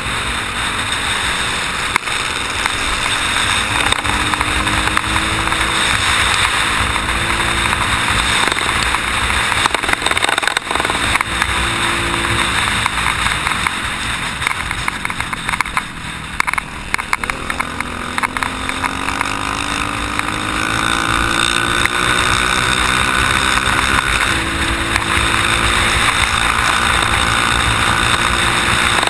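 Dirt-bike engine running hard under way over a steady noisy rush. Its pitch climbs as it accelerates and drops back at gear changes several times.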